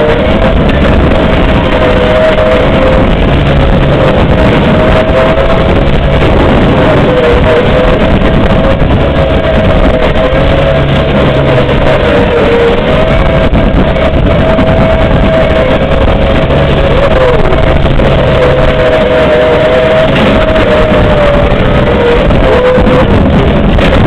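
John Deere lawn tractor engine running steadily as it drives, mixed with loud heavy metal music. A steady whine dips in pitch now and then.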